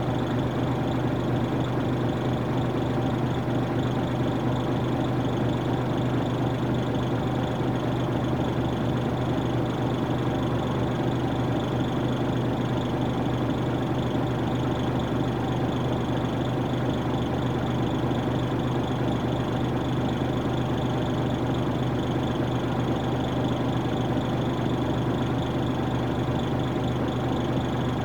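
Nissan Diesel PF6 diesel engine of a U-UA440HSN city bus idling steadily, heard from inside the bus, with an even low hum and no revving.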